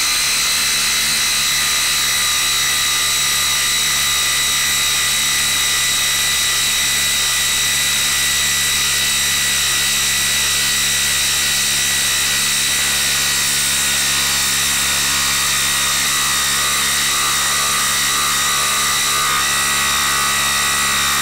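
DeWalt cordless impact driver hammering steadily under load as it drives a long lag screw into a wooden stump.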